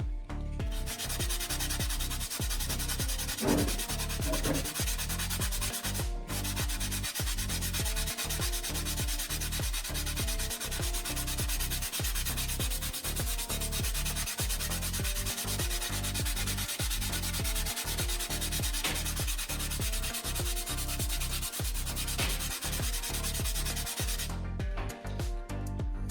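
Steady abrasive grinding or sanding noise, breaking off briefly about six seconds in and stopping near the end, over background music with a repeating bass line.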